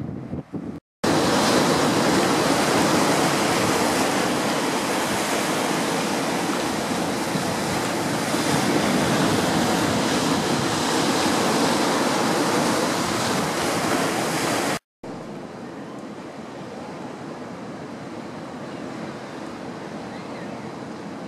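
Surf breaking on a sandy, rocky beach: a loud, steady rush of waves that starts suddenly about a second in and cuts off abruptly after about fourteen seconds. It gives way to a quieter steady outdoor hiss.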